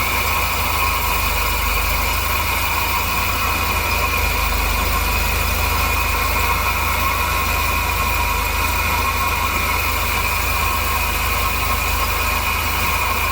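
Volvo 740 engine idling steadily. The exhaust's weld joint by the catalytic converter has been sealed with Gun Gum repair paste and no longer leaks.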